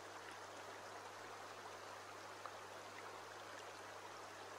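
Faint, steady flow of a shallow stream over stones, with a low steady hum underneath.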